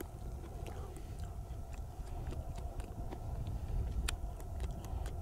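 Chewing frost-sweetened wild berries close to the microphone: irregular small crunches and clicks, over a low rumble.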